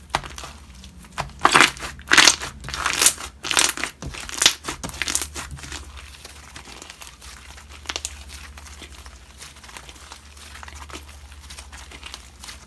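Slime being pressed and worked by hand, making a quick run of crackly pops and crinkles for a few seconds, then only scattered small clicks. A steady low hum sits underneath.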